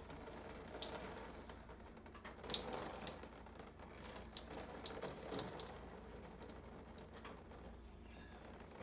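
Isopropyl alcohol trickling and dripping off a circuit board, with scattered light clicks and taps.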